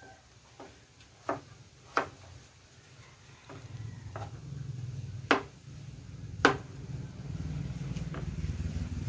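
Kitchen knife chopping potatoes on a plastic cutting board: separate sharp knocks a second or so apart, the two loudest about five and six and a half seconds in. A low rumble grows in the background from about halfway.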